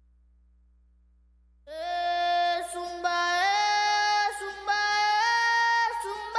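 Near silence, then from about two seconds in, female voices sing long wordless held notes that step up and down in pitch.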